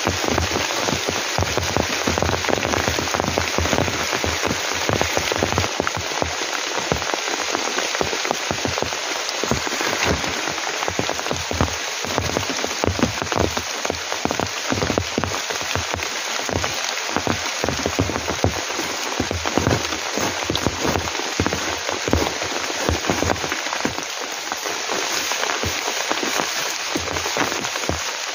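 Heavy rain: a steady dense hiss filled with many sharp, close drop impacts.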